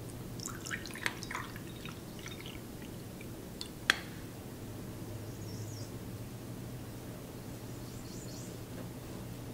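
A few light taps and clicks, with one sharp click about four seconds in, over a steady low hum.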